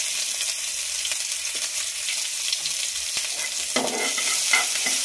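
Oil sizzling steadily in a nonstick frying pan as chopped ginger, green chilli and cumin seeds fry for a tadka. A steel spatula stirs and scrapes the pan, more loudly near the end.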